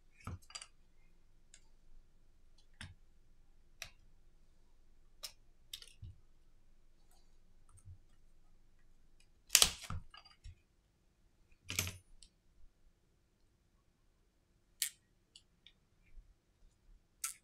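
Scattered sharp clicks and taps of small plastic parts as a plastic opening pick is worked around a Redmi Note 10 5G phone being taken apart. Two louder clicks come a little past the middle.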